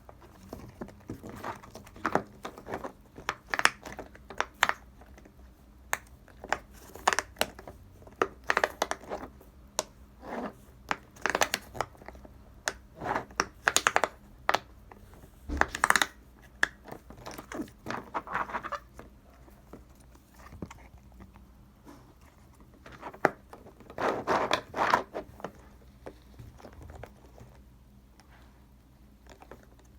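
Silicone pop-it fidget toy shaped like a cake, its bubbles pressed and popped by fingers: irregular soft pops and clicks, some in quick runs. A burst of pops comes a little past the middle and another about three quarters of the way in, and it thins out near the end.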